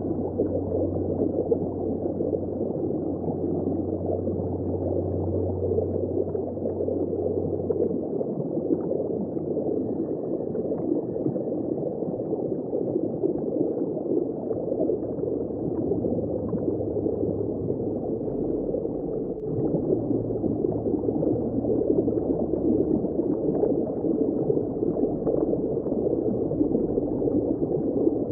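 Underwater ambience: a dense, muffled, crackling rush of churning water, with a low hum underneath that shifts about eight seconds and again about twenty seconds in.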